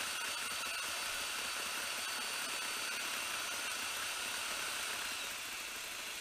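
Cordless drill motor running steadily with a high whine, driving a line spooler that strips old monofilament off a reel spool. It eases slightly near the end.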